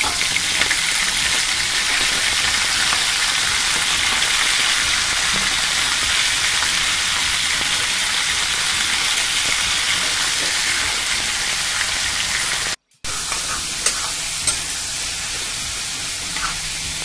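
Raw chicken pieces sizzling in hot oil in a kadai, a steady hiss. It cuts out briefly about 13 seconds in, then the sizzling resumes with a few clicks of a steel spoon stirring the chicken.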